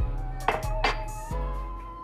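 Background music with a beat: a bass line, drum hits and a held melody note.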